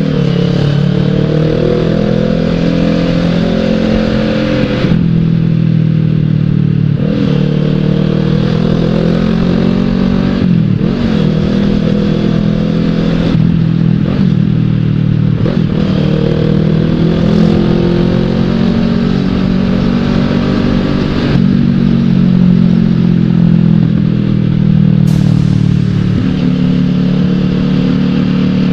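Kawasaki ER-6n's 650 cc parallel-twin engine pulling through the gears while riding: its pitch climbs, breaks off at each shift and climbs again, about six times.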